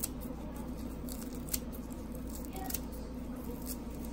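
Kitchen scissors snipping fresh mint leaves, a few sharp short snips spaced about a second apart.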